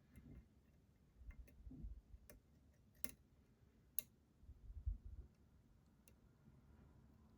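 Faint, scattered metallic clicks of a lock pick and tension wrench working the pins of a pin-tumbler lock, with low dull handling bumps between them. The two sharpest clicks come about three and four seconds in.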